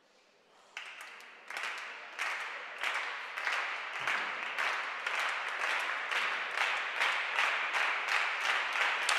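Audience applause that starts about a second in and grows steadily louder, with many claps landing together in a loose, regular beat.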